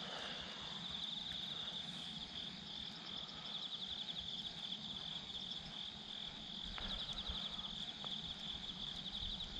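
Insects chirping in a steady, high-pitched chorus with a fast pulsing texture.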